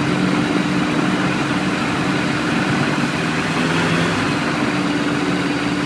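Ultralight aircraft's engine and propeller running at a steady speed, heard from the cockpit, with one unchanging hum.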